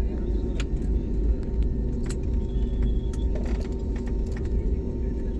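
Airliner cabin noise on the ground after landing: a steady low rumble with a constant hum from the engines and air system, with scattered light clicks and rattles.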